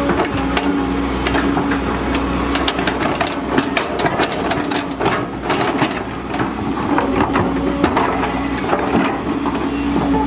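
Volvo EC210DL excavator working: its diesel engine runs steadily under many irregular knocks and clatters, heaviest through the middle.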